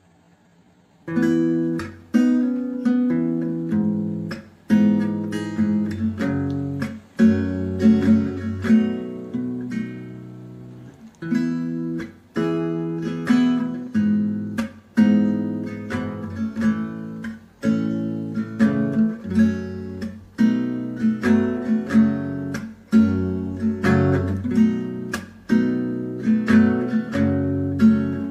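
Background music of solo acoustic guitar strumming chords in a steady rhythm, starting about a second in.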